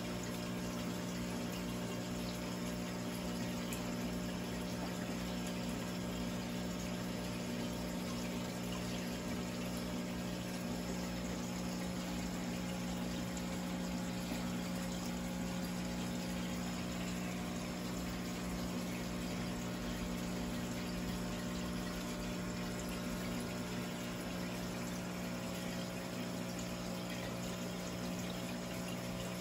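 Aquarium running steadily: water bubbling from an air stone over the low, even hum of the tank's pump and filter.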